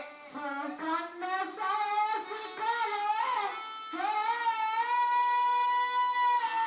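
Odia Krishna Lila folk-theatre singing with electronic keyboard accompaniment: a melodic phrase with sliding notes, then one long held high note from about four seconds in.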